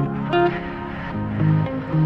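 Background music: a melody of plucked notes.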